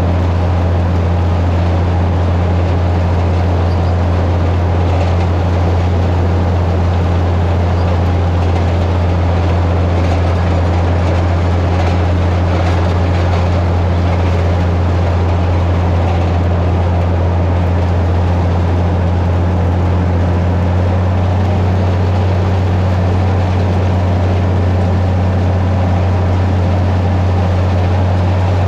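Tractor engine running steadily under load, driving an old Bearcat flail chopper through a stand of green hay. A loud, even low drone, with the rush of the chopper's rotor and blower over it.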